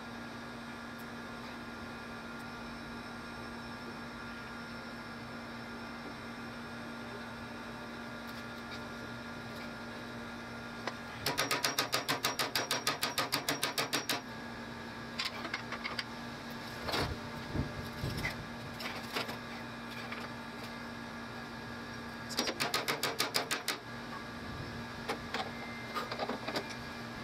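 Hammer striking the rusted brake drum and hub of an old electric golf cart wheel: a quick run of sharp metal blows, about seven a second, for about three seconds, a few separate knocks, then a second shorter run. A steady hum runs underneath.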